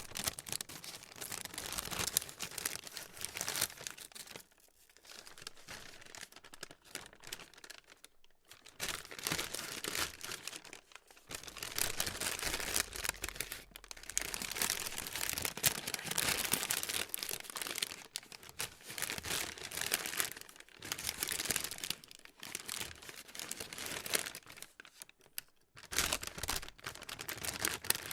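Plastic being crinkled and crumpled by hand: a dense, irregular crackling that swells and eases in bursts, with brief lulls now and then.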